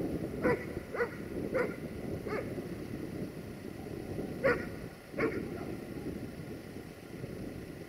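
A dog barking, a quick run of single barks followed by a pause and then two more barks, over a steady low rumble.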